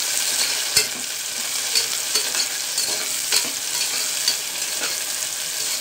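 Sliced shallots and green chillies frying in hot sesame oil in a pressure cooker, with a steady sizzle, while a slotted metal spoon stirs them. The spoon scrapes and knocks against the pot repeatedly, with a sharp knock about a second in. The onions are at the start of a light sauté.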